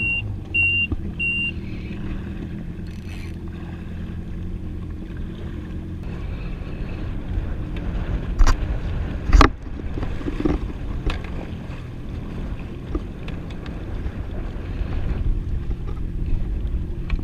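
Yamaha WaveRunner jet ski engine running steadily at idle. Three short high beeps sound in the first second or so, and two sharp cracks come close together about halfway through.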